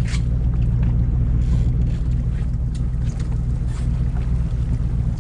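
Boat engine running steadily, a low drone, with a few sharp clicks and knocks scattered over it.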